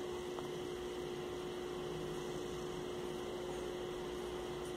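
Steady electrical hum, one constant tone, over a faint even hiss of background noise.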